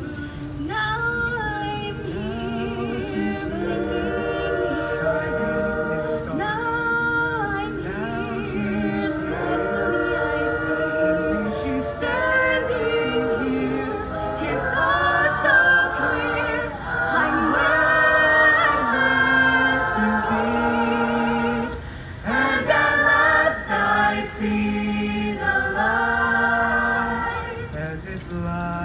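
Mixed high-school choir singing in harmony, a cappella-style, with a soloist at a microphone.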